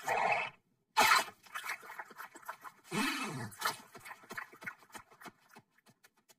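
Cartoon sound effects: two noisy crashing bursts, the second about a second in and the loudest, then a short cry that rises and falls in pitch, and a run of quick even ticks near the end.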